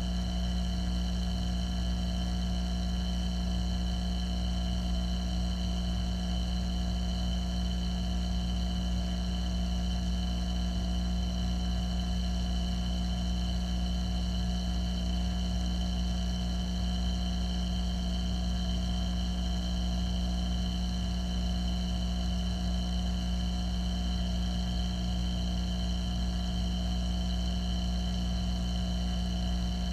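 Steady mechanical hum of a saltwater aquarium's pumps and powerheads, heard through the water: a deep drone with several steady whining tones above it.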